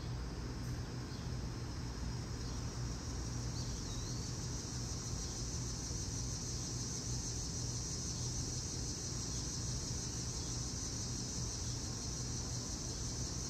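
Steady high-pitched insect chorus over a low steady hum, with a faint short chirp about four seconds in.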